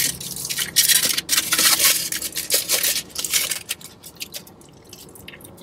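Aluminium foil wrapper crinkling and rustling as it is peeled back from a burrito, loudest in the first three seconds, then softer sounds of a bite and chewing near the end.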